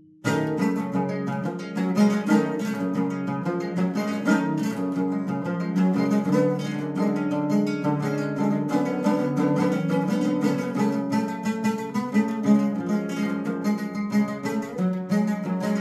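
Colombian bandola andina played with quick, closely spaced strums and plucked notes on its paired metal strings, starting about a quarter second in after a chord has rung out; an instrumental passage with no singing.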